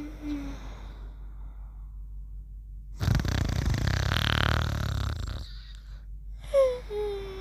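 Cartoon-style snoring: a long rattling snore on the breath in, then a whistle on the breath out that falls in pitch, starting near the end. The tail of an earlier falling whistle fades right at the start.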